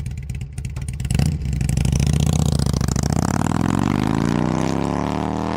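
Motorcycle engine running with a pulsing idle, revved about a second in, then accelerating with its pitch rising steadily through the second half.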